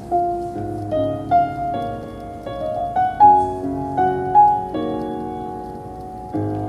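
Instrumental introduction to a sung anthem, before the voice comes in: struck notes and chords, a new one about every half second, each ringing and fading.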